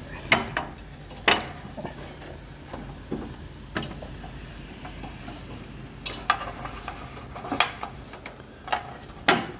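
Irregular knocks and clunks of feet and hands on ladder rungs as someone climbs down a ladder, about ten separate knocks spread unevenly over several seconds.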